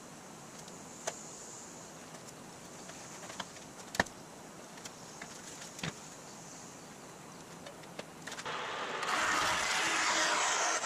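Scattered light clicks as masking tape is handled and laid along the edge of an aluminum sheet, with one sharp click about four seconds in. Near the end a vertical bandsaw starts running and cuts into the thin aluminum hood panel with a steady, loud noise.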